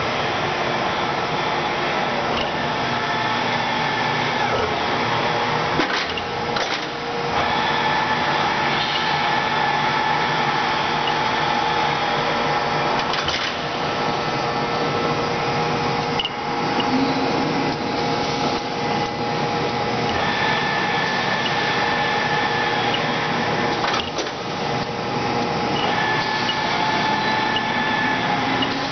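Acer 24160G 15 HP gap-bed engine lathe running under power, a steady mechanical whine from the headstock and drive. The whine changes pitch a few times, with short breaks and knocks between.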